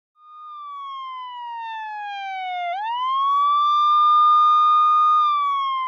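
Siren-like sound effect: a single tone that slides slowly downward, swoops back up about halfway through, holds level, then begins sliding down again near the end.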